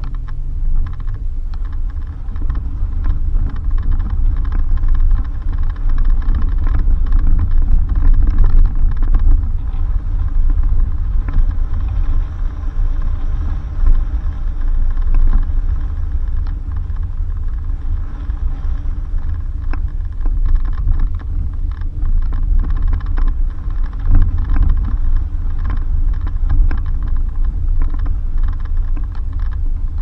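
Suzuki Jimny driving on a dirt road: a steady low rumble with many short knocks and rattles throughout.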